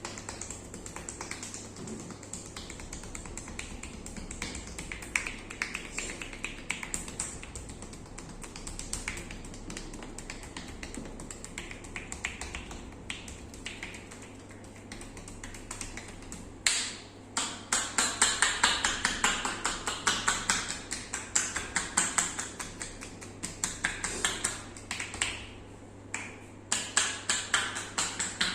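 Hands tapping and slapping on skin in a fast percussive massage rhythm, quieter at first and much louder and denser about halfway through.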